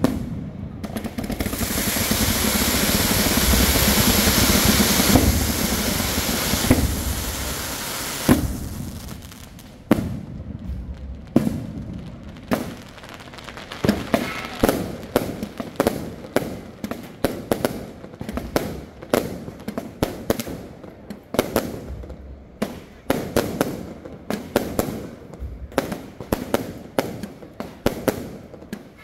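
Aerial fireworks display. For about the first eight seconds there is a loud, dense, continuous crackle and hiss. Then comes a string of separate sharp bangs from shells launching and bursting, several a second near the end.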